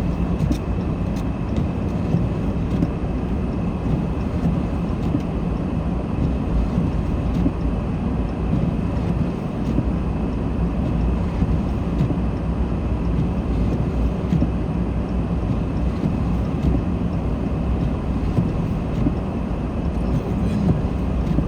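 Steady cabin noise of a car driving slowly on a snow-covered road: engine and tyres on snow give an even, low rumble.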